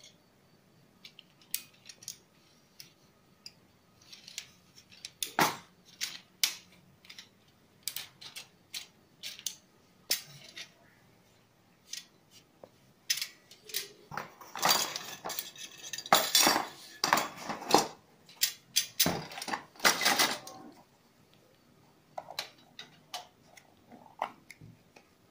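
Aluminium elements and rods of an HD U19 digital TV antenna clinking and rattling against each other as they are handled, in scattered clicks and clatters. About halfway through there is a busier, louder stretch of clattering that lasts several seconds.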